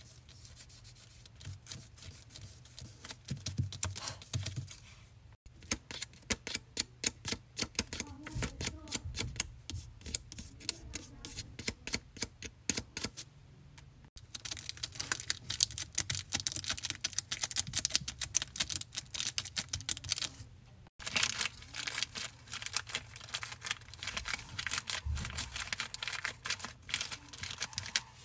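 Fingers tapping, scratching and rubbing on a homemade paper fidget board: fast runs of light clicks and taps, like typing, in several stretches with short breaks between them.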